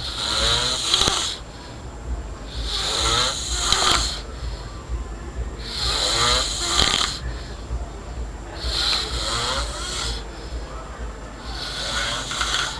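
A person snoring in rough, rattling, pig-like snores, five of them, about one every three seconds.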